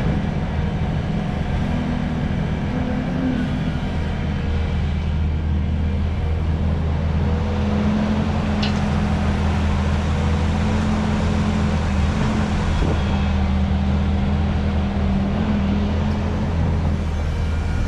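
Hydraulic excavator's diesel engine running steadily at an even pitch.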